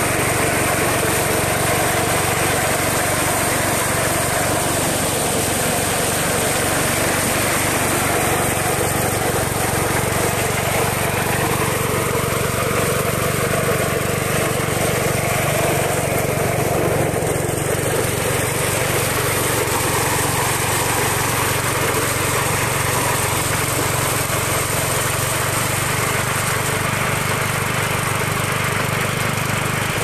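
A small engine running steadily at an even speed, with no change in pitch or loudness.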